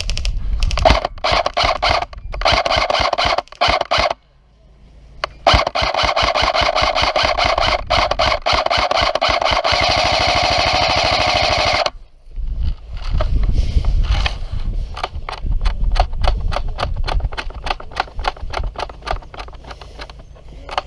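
Airsoft electric gun firing full-auto bursts: a rapid, even rattle of shots over a motor-and-gearbox whine. One burst lasts about three seconds and a longer one about six, followed by sparser, quieter clicking.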